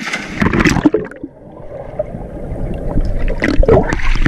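A person jumping into a swimming pool: a big splash right at the start, then muffled water sounds as the camera dips at and under the surface, and choppy splashing again near the end.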